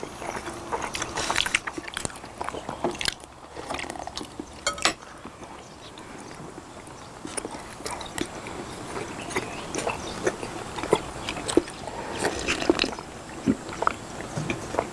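Eating sounds: people chewing rice cakes, with scattered small clicks of forks and spoons against glass bowls, and sipping of sujeonggwa from a glass bowl near the end.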